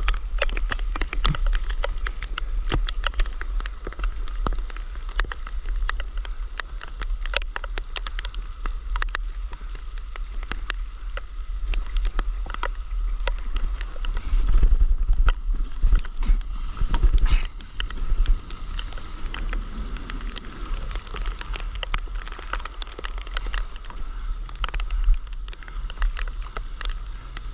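Rain pattering on a waterproof action camera and the water around it, dense sharp ticks over a heavy wind rumble on the microphone. The noise grows louder and rougher for a few seconds about halfway through.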